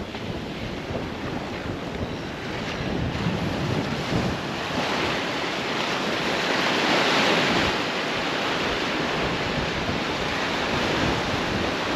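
Ocean surf washing through shallow water around the legs, with a wave's rush swelling and peaking about midway, and wind on the microphone.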